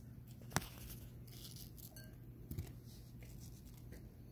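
Quiet handling noises: a sharp click about half a second in and a softer knock about two and a half seconds in, with a few faint ticks over a low steady hum.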